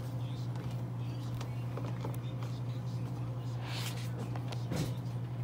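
Steady low hum, with a coloring book's paper page being turned, a brief rustle about four seconds in, and a few small handling clicks.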